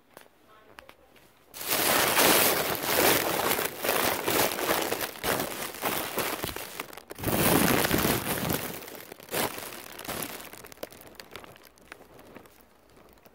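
Loud rustling and crinkling with small knocks from things being handled close to the microphone. It starts about a second and a half in and fades over the last few seconds.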